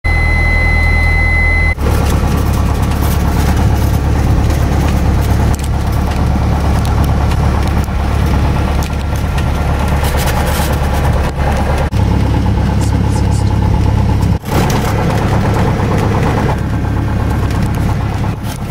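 Cessna 172S's four-cylinder Lycoming piston engine and propeller running steadily at low power while the plane taxis, heard from inside the cabin. A steady high beep sounds over it for the first second and a half.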